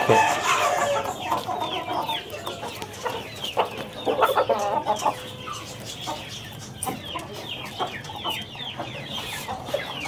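Several chickens clucking as they feed on grain, many short calls overlapping throughout.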